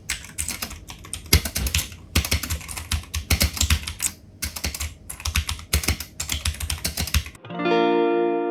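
Rapid typing on a Leaven K660 mechanical keyboard: runs of sharp key clicks with short pauses between them. Near the end the typing stops and a held guitar chord of background music comes in.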